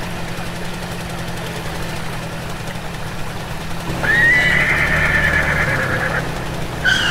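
A low, steady engine hum, then about four seconds in a horse's whinny: a long, wavering high call lasting about two seconds. A second, falling call starts near the end.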